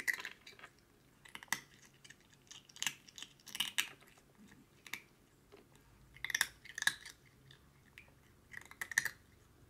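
Calico cat chewing a crunchy treat: crisp crunches in short clusters, with brief pauses between bites.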